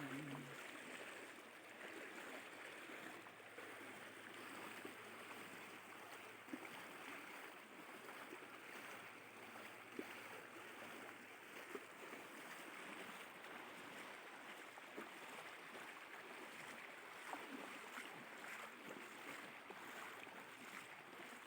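Steady rush of flowing floodwater, with faint scattered splashes.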